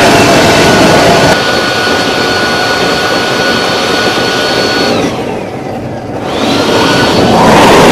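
Kerosene-fired home-built gas turbine, made from a Holset turbocharger, running with a loud rush and a steady high whine. About five seconds in, the whine falls and the noise drops away, then the whine rises again and the engine is back at full loudness near the end.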